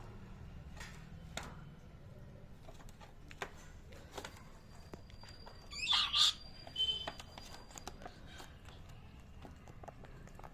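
Pet parrot giving one harsh squawk about six seconds in, followed by a short shrill note, amid faint scattered clicks.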